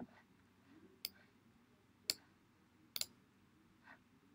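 Computer mouse clicks: four sharp single clicks about a second apart.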